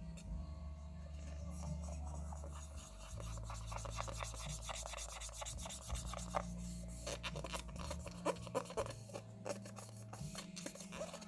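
Rubbing and scratching of small parts being handled, with quick light clicks that crowd together about seven to ten seconds in, over a low hum that changes pitch in steps.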